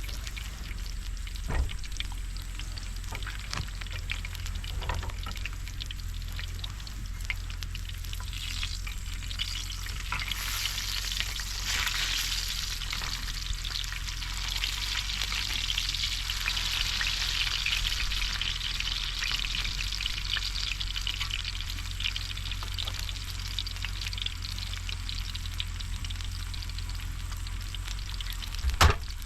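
Food sizzling and crackling in a hot pan, the sizzle swelling louder partway through, with a sharp knock near the end.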